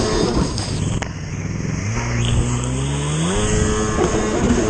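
Racing jet ski's two-stroke engine running hard over choppy water, with the rush of spray around the hull. About a second in the revs drop away, then climb steadily back up over the next two seconds as the throttle comes back on.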